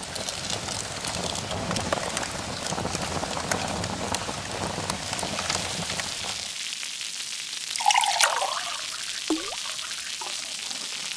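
Rain and pouring-water sound effect. The heavy rushing eases after about six and a half seconds, and a few short drip sounds follow.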